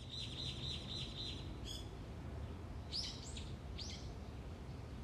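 A small bird calling: a quick run of high repeated notes for about the first second and a half, then a few short, sharp, high chirps, over a faint low background rumble.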